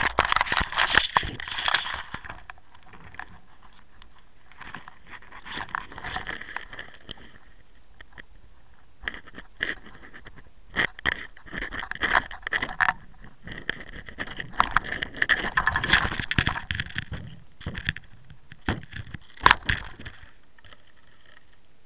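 A caught blackfish (tautog) and the landing net holding it scraping and clicking against a boat deck in several bursts, with a sharp knock near the end.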